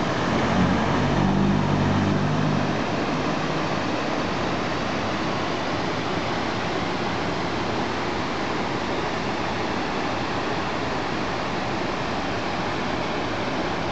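River water rushing over shallow rapids and rocks, a steady even hiss. A low hum sounds over the first few seconds and fades out.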